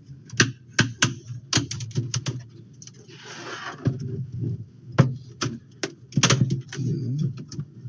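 Plastic clicks and snaps as a laptop's back cover is pried away from its chassis, the clips popping loose one after another. A short scraping rub of plastic comes about three seconds in.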